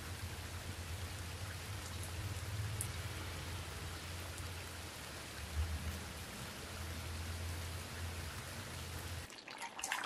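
Steady rain falling on a wet concrete porch and paved street: an even hiss with a low rumble underneath. Near the end the rain cuts off and a few light clicks follow, from stirring in a cooking pot.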